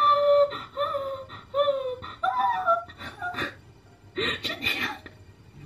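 A woman's excited, high-pitched squeals, several in a row with bending pitch, followed about four seconds in by a short burst of breathy laughter.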